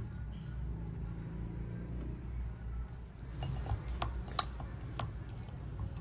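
LongBeach plastic syrup pump on a caramel syrup bottle being pushed down and released: a quick run of sharp plastic clicks in the second half, the loudest about four and a half seconds in, over a low steady hum.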